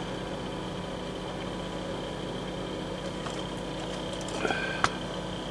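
Steady low electrical hum of workbench background noise, with a few faint small handling ticks and one sharper click near the end.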